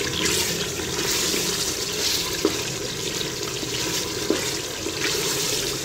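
Beef curry sizzling steadily as it is fried down in an aluminium pressure cooker and stirred with a wooden spatula. The spatula knocks lightly against the pot twice.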